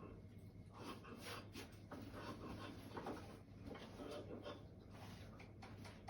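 Faint indoor room tone, with a low steady hum and scattered soft rustles and light taps.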